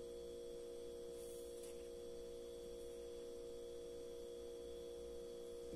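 Room tone: a steady hum made of a few fixed mid-pitched tones with a fainter high whine, unchanging throughout.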